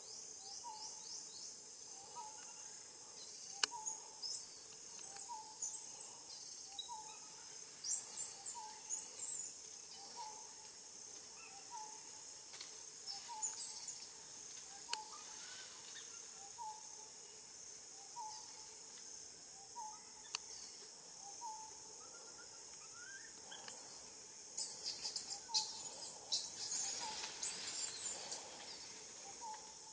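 Forest birdsong over a steady high insect drone. One bird repeats a short note about once a second, while other birds give scattered high chirps. Near the end, a dense burst of high twittering is the loudest part.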